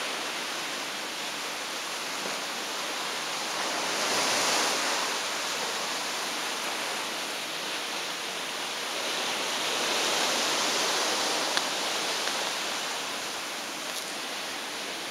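Seawater rushing and churning along the hull of the cruise ship Royal Princess under way, a steady hiss of foam and spray that swells twice.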